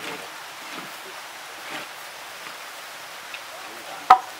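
Pork and vegetables being stirred in a large iron wok with a long wooden paddle, over a steady hiss. One sharp knock with a short metallic ring near the end.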